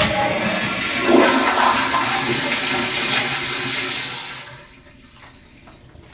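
Kohler commercial restroom toilet flushing: a loud rush of water that stops after about four and a half seconds.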